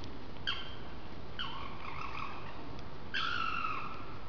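Loud animal screeching: a short screech about half a second in, then two longer screeches of about a second each, their pitch sliding slightly downward.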